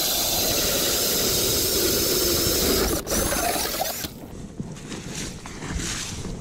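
Power ice auger drilling through lake ice, the blades squealing and grinding as they cut. It is loudest for the first four seconds, with a brief break about three seconds in, then runs on more quietly.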